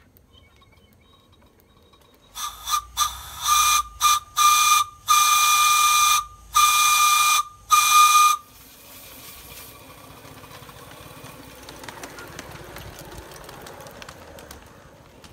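Whistle of a Polly Engineering Polly 1 5-inch gauge live-steam locomotive, blown in about eight blasts on one steady high note: a few short toots about two seconds in, then longer blasts, stopping after about six seconds.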